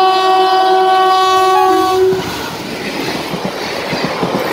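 An Indian Railways electric locomotive's horn blows for about two seconds, a loud steady chord whose lower note dips briefly near its end. Then the passenger coaches run past with a regular clickety-clack of wheels over the rail joints.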